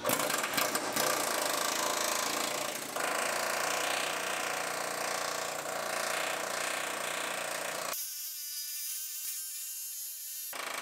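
Air chisel hammering through the thin sheet-metal bottom of a rusty frame rail with a continuous rattling buzz. About eight seconds in the cutting stops and a thinner, steady buzz carries on for a couple of seconds.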